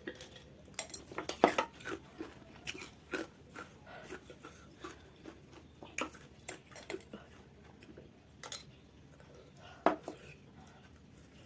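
Tableware being handled: irregular clicks and clinks, with a quick cluster of knocks about a second in and one sharp clink near the end.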